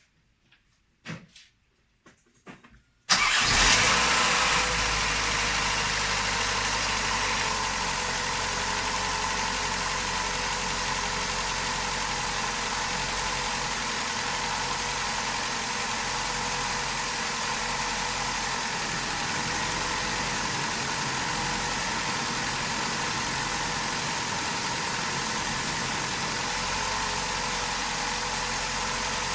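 Ford Ka 1.3 petrol four-cylinder engine starting up about three seconds in, briefly louder, then settling into a steady idle.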